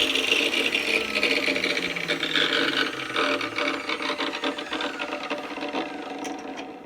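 Homemade abrasive cut-off saw winding down after a cut: the wheel's whine slides down in pitch and fades over several seconds with a fine rattle, dying away near the end.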